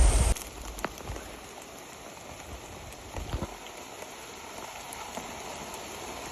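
Rain falling steadily: an even hiss with scattered ticks of drops. A loud low rumble cuts off abruptly just at the start.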